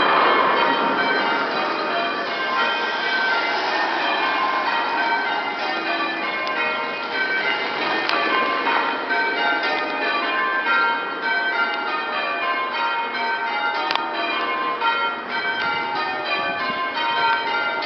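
A ring of church bells pealing: the bells are struck one after another in quick succession, their tones overlapping and ringing on.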